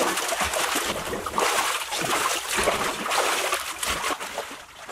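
Pool water splashing and sloshing as two swimmers move about in it, with water running in from the slide outlet. The splashing eases briefly near the end.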